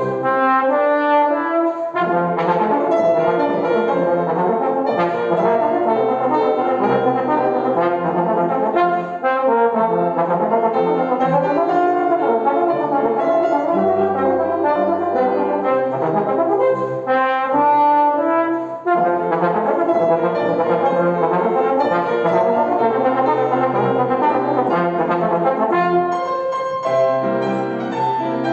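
A brass instrument plays a slow classical melody with sustained notes, in a dense, full texture.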